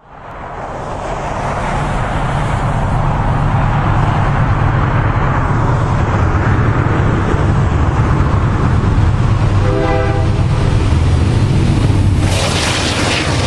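Diesel engines of two GE freight locomotives, an ES44DC leading and a Dash 9-44CWL trailing, running as the train approaches, a steady low rumble. A brief horn toot sounds about ten seconds in, and near the end a sudden rush of louder, brighter noise comes as the lead locomotive passes close by.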